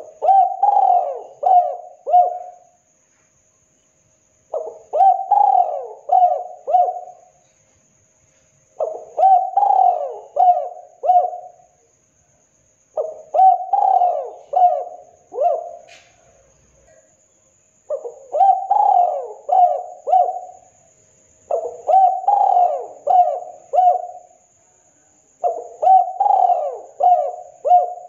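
Spotted dove cooing persistently: seven phrases of four or five quick, bending coo notes, each phrase about two and a half seconds long, repeating every four seconds or so.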